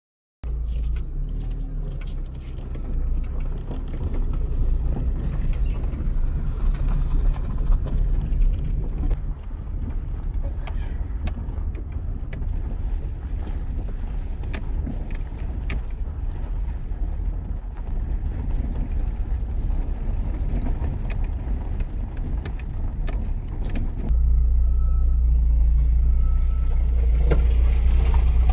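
A steady low rumble with scattered light clicks, stepping louder near the end.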